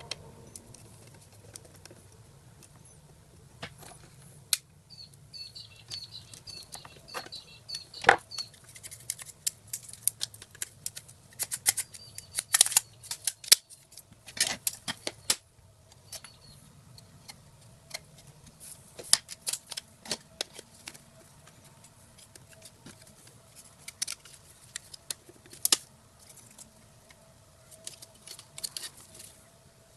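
Plastic parts of a car's dual-cup drink holder being handled and worked: a string of irregular sharp clicks and taps, with a short run of high squeaks about five seconds in.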